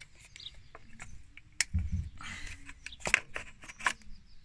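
Scattered light clicks and knocks of hands handling plastic engine-bay parts, with a soft rustling thump near the middle.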